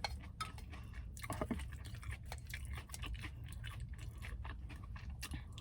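Close-miked chewing of a mouthful of kale salad with bacon, a string of faint, irregular crunches.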